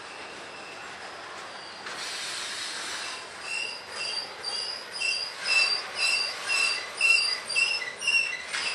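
Covered grain hopper cars rolling past on a curve, their wheels squealing. The high squeal starts a few seconds in, pulses about twice a second and grows louder.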